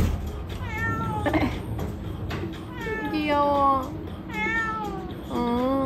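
A tabby cat meowing several times: drawn-out calls that mostly fall in pitch, the longest about three seconds in.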